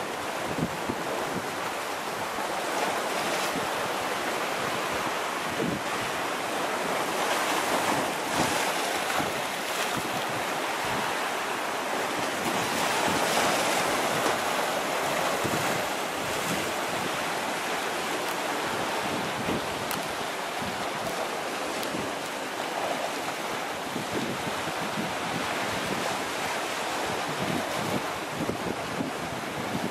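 Caribbean surf washing into rock pools and breaking against jagged shoreline rocks: a continuous rush of water that swells louder now and then as bigger waves hit.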